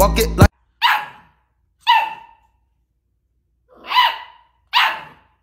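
A pit bull puppy barking: four short, high-pitched barks about a second apart. Music with a beat plays briefly at the start and cuts off about half a second in.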